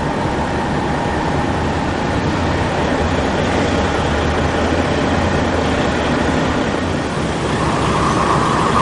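Fire trucks' diesel engines running with a steady, loud street rumble. A brighter, choppier sound comes in near the end.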